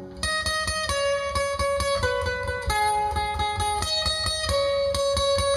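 Acoustic guitar played solo: a fast, even picking pattern with held melody notes on top that change every half second or so. It starts a moment in.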